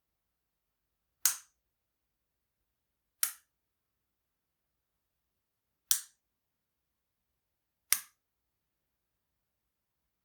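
Light switch being flipped: four short, sharp clicks, about two to three seconds apart.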